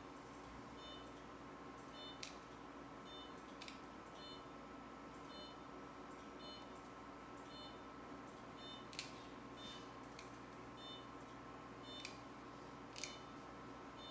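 Dog nail clippers cutting through nails: about five sharp clicks spread a few seconds apart. Behind them a short electronic beep repeats about once or twice a second over a faint steady hum.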